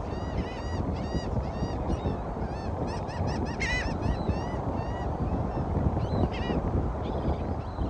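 Birds calling in many short, arched cries that overlap and come thick and fast, thinning out toward the end, over a steady low rush of wind and water.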